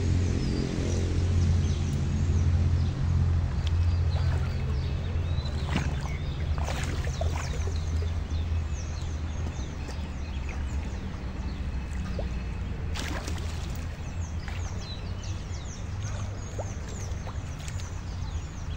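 Background music with a steady low bass drone. Birds chirp high above it, more often in the second half, and a few short sharp noises come about six, seven and thirteen seconds in.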